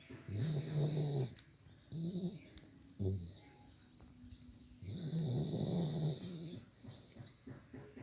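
Snoring: four breaths, two long and two short. The long ones come near the start and about five seconds in.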